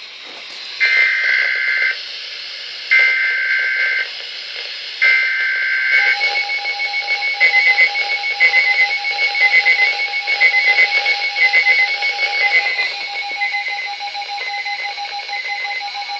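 Emergency Alert System SAME header: three short screeching digital data bursts about a second apart. They are followed by a pulsing alarm tone, the attention signal that precedes a weather warning on a Weather Radio broadcast.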